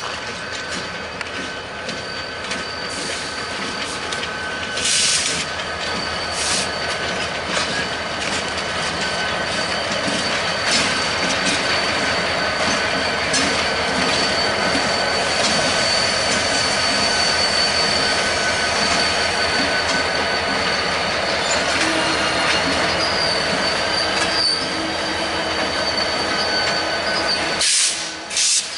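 BNSF diesel locomotives rolling slowly past, their wheels squealing steadily on the rails over the rumble of the wheels and engines. A few sharp clicks come about five seconds in and again just before the end.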